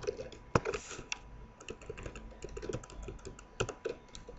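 Typing on a computer keyboard: a run of uneven key clicks, with a few sharper keystrokes near the start and about three and a half seconds in.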